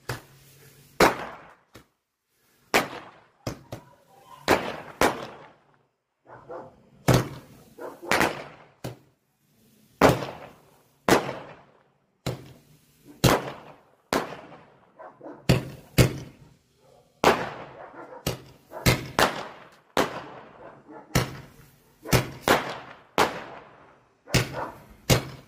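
Flashing Thunder firework candle by Mega Banger firing shot after shot: a long series of sharp, loud bangs, one or two a second, as the shots launch and burst into loud reports. Each bang trails off in a short echo.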